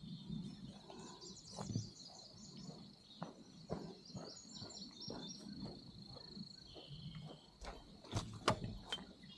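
Birds singing with chirps and a steady trill, over a hiker's footsteps, with a few sharper clicks near the end.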